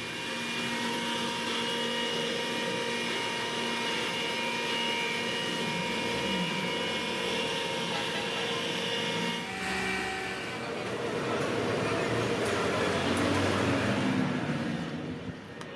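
Flour mill machinery running with a steady, droning hum while ground flour pours into a sack. About ten seconds in the hum breaks off into a noisier rushing sound.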